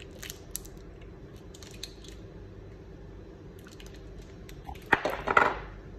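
Light clicks of a spoon and dish as cream is scooped out, then a short, louder scrape with sharp clicks about five seconds in.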